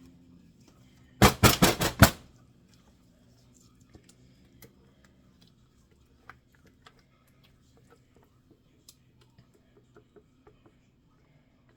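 A quick run of about six loud knocks and clatters in the first couple of seconds, then scattered light clicks and taps: tools and containers being handled during soap making.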